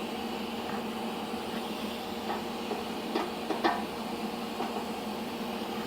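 TIG welding arc on a steel oil pan, a steady hiss with a faint hum, as filler rod is dabbed into the puddle around a steel fitting. A few light ticks between about two and four seconds in.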